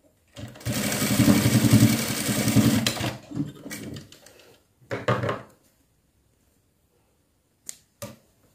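Industrial lockstitch sewing machine stitching a short tacking seam through cotton fabric: one run of about two and a half seconds, then a brief second run. Two short sharp clicks near the end.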